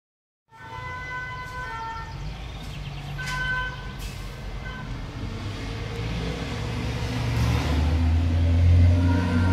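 Street traffic with an emergency vehicle's two-tone siren alternating between two pitches in snatches during the first half. A large vehicle's engine rumble builds and is loudest near the end as it passes close.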